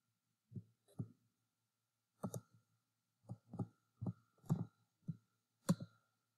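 Computer keyboard keystrokes: about ten separate, unevenly spaced taps as letters are typed one by one into a row of entry boxes.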